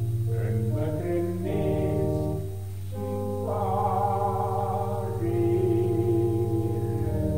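Music from a Romanian folk song: a melody of held, wavering notes that change every second or so over sustained chords and a steady bass, with no words sung.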